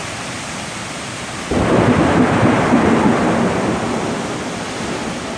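Heavy rain falling steadily, and a thunderclap breaks in suddenly about a second and a half in, rumbling and slowly fading over the next few seconds.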